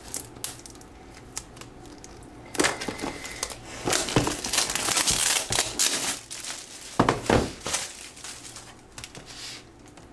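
Clear plastic shrink-wrap being torn open and pulled off a boxed tablet, crinkling and crackling. The crinkling starts a couple of seconds in, is loudest in the middle and dies down near the end.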